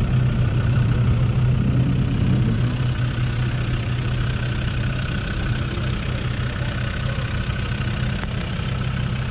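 Land Rover Discovery 2's Td5 2.5-litre five-cylinder turbodiesel idling steadily.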